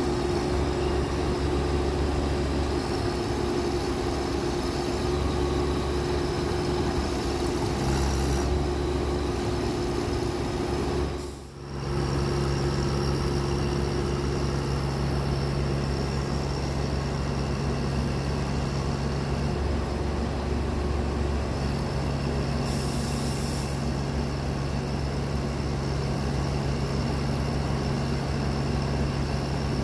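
Service truck engine running steadily under load, driving the underhood VMAC Multifunction hydraulic system that powers the truck-mounted crane as its boom is raised; a constant low hum. The sound briefly drops out once, a little over a third of the way in, and then carries on.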